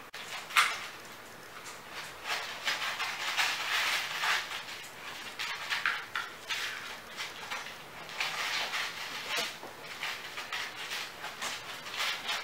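Kittens moving about in a plastic pet carrier: irregular rustling and scratching of claws on the plastic and the towel lining, with a sharper knock about half a second in.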